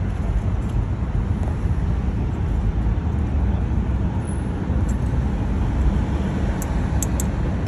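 Steady low outdoor rumble of background noise. A few faint light clicks come in the last few seconds as worn brake pads are worked out of the caliper by hand.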